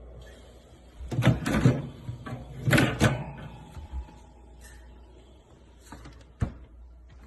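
Two bursts of clattering knocks, the first about a second in and the second near three seconds, then two sharp clicks near the end, over a steady low hum.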